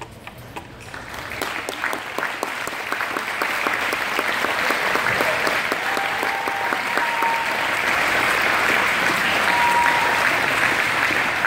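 Audience clapping, starting about a second in and building to steady applause.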